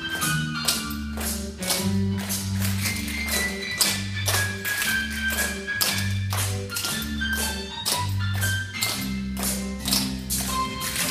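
Instrumental dance music with a bass line and melody, over a steady run of sharp clicks, several a second, from a group's tap shoes striking a wooden floor.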